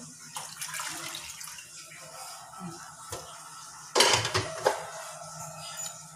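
Cooking oil poured from a small bowl into an empty, unheated non-stick wok, then a sharp clatter of kitchenware about four seconds in, with a smaller knock just after.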